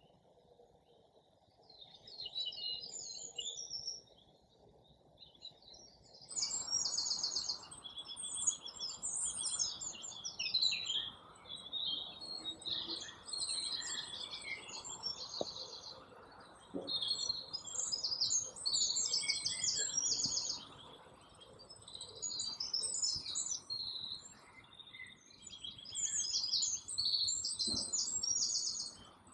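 Songbirds singing in woodland: a run of high, fast trills and warbled phrases, one after another, starting about two seconds in.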